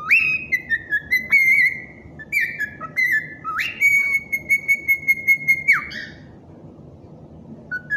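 A run of whistled notes that slide up and down, ending in one long held note about four seconds in.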